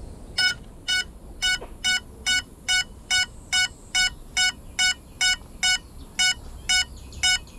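A downed FPV drone's lost-model beeper sounding a steady string of short beeps, about two a second, starting about half a second in. It is the locator alarm of a crashed quad lying on the ground.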